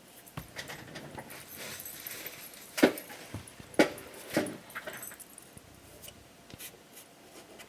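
Wooden organizer pieces being handled and fitted together: scattered light clicks and rustling, with two sharp wooden knocks near the middle and a softer one just after.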